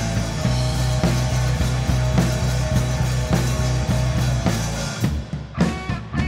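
Live rock band playing electric guitar, bass guitar and drum kit. About five seconds in, the bass drops away and the sound thins to separate drum hits with ringing electric guitar chords.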